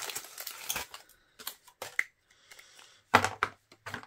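Foil wrapper crinkling as it is peeled off a chocolate egg, then a few light clicks and, about three seconds in, a sharp crunch as the hollow milk-chocolate shell is cracked apart to free the plastic toy capsule inside.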